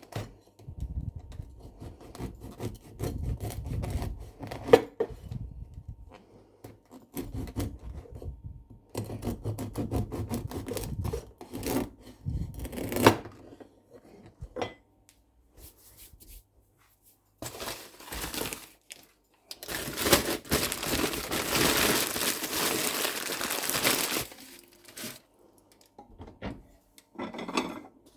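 Kitchen food-preparation handling sounds: scattered knocks and clicks with rubbing and scraping, and a steady rushing noise for about four seconds past the middle.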